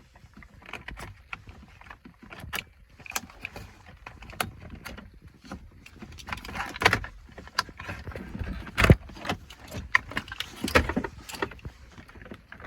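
Clicks, knocks and rattling of hard plastic and metal parts as wiring connectors are unplugged from the back of a car radio and the unit is handled, with the loudest knocks about nine and eleven seconds in.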